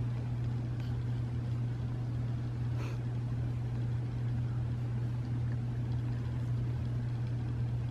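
A steady low hum that does not change, over a faint background hiss.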